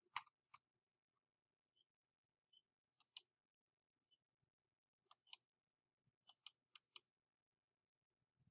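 Computer mouse clicking: a click near the start, then quick pairs of clicks about three and five seconds in and twice more near the end.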